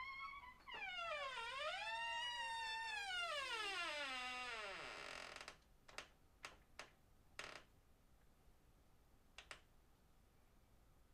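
Door hinge creaking in one long squeal of about four seconds that dips, rises, then slides steadily down in pitch, followed by a few short clicks and a knock.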